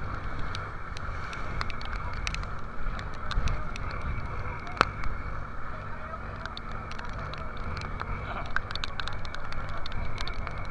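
Rough sea and wind around a fishing boat under way: a steady low rumble with rushing, splashing waves, scattered sharp ticks, and one louder knock about five seconds in.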